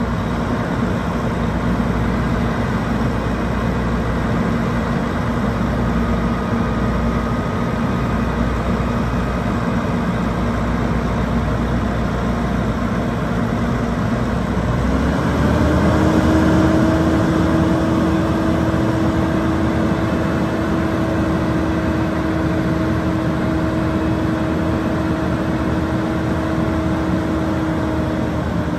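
The 2007 Volvo FM400 dump truck's inline-six diesel engine runs steadily while the hydraulic tipper body is lowered. About halfway through, the engine note steps up in pitch and holds there.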